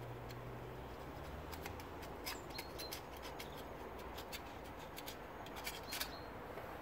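Faint scattered small clicks and light scratching as a fingertip spreads a thin layer of sealant on the cylinder head.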